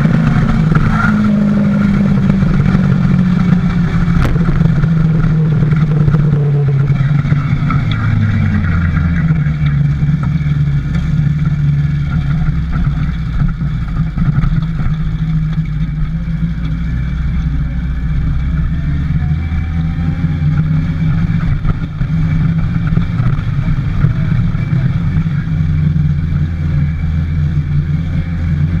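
Motorcycle engine running while riding, heard close from the handlebars. Its note falls over the first several seconds, drops again about eight seconds in, then holds steady.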